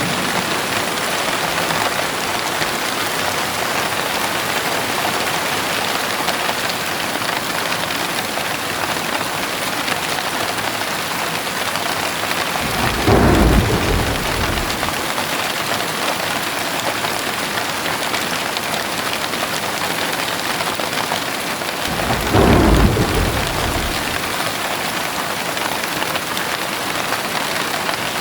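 Heavy rain falling steadily, with two low rolls of thunder: one about halfway through and another about three quarters of the way in.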